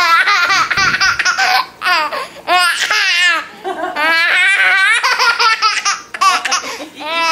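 Baby laughing in high-pitched bouts, about five runs of laughter separated by short breaths.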